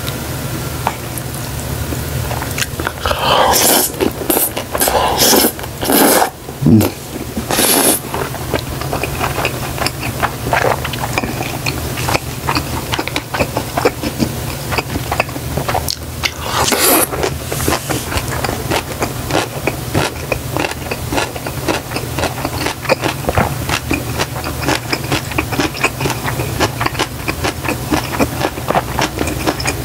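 Close-miked eating of jajangmyeon noodles and a fried dumpling: wet chewing and mouth clicks, with louder slurps and bites about three to eight seconds in and again about seventeen seconds in. A steady low hum runs underneath.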